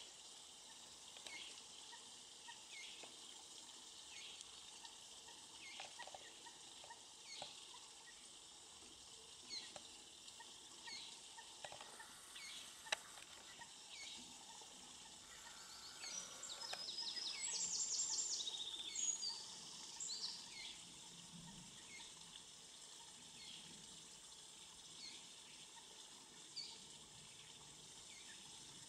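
Moorhen chicks peeping: thin, high, downward-sliding peeps repeated about every second or so. There is a brief burst of another bird's rapid high song about halfway through, and a single sharp click just before it.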